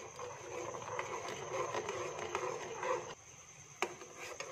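Metal spoon stirring sugar and water in a steel saucepan, scraping and clinking against the pan as the sugar dissolves over the heat. The stirring stops about three seconds in, and a single clink follows.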